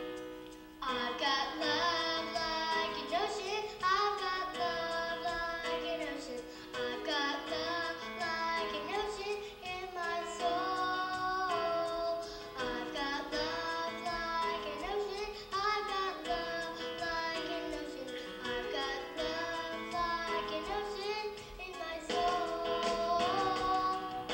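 Children's choir singing a song over steady instrumental accompaniment; the voices come in about a second in.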